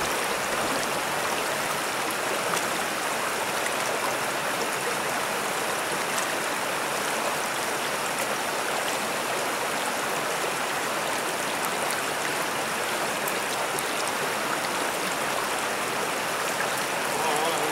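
Small rocky stream running over riffles and stones: a steady rush of water.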